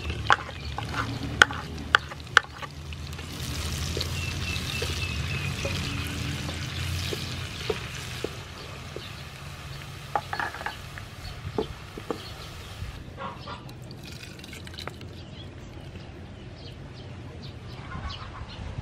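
Chopped green onion frying in hot soybean oil in a pan, a steady sizzle and bubbling that swells a few seconds in and then eases off. A few sharp clicks come early on, with a steady low hum underneath.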